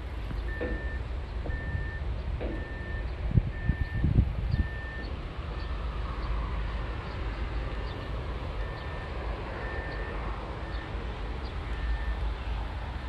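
A vehicle's reversing alarm beeping about once a second, each beep a steady high tone half a second long, fading away in the middle and coming back, over a steady low rumble. A few dull low thumps a few seconds in are the loudest sounds.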